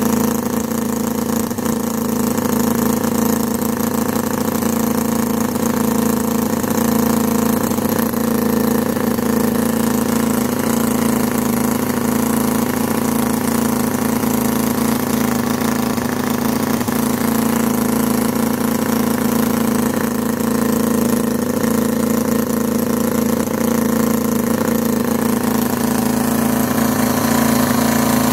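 Cison L4-175 inline four-cylinder four-stroke model engine, converted to run on nitro glow fuel through a Traxxas 4033 carburetor, running steadily at one constant speed.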